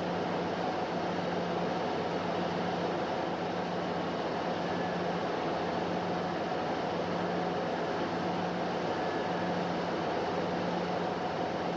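ST44 (M62-type) diesel locomotive running under way: a steady mechanical drone with a constant low hum, unchanging in level.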